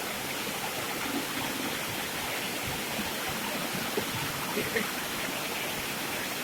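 Fast-running river water flowing and splashing steadily over rocks.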